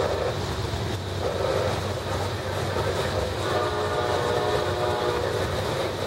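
Freight train cars rolling past: a steady rumble of steel wheels on rail. About three and a half seconds in, a held pitched tone joins the rumble.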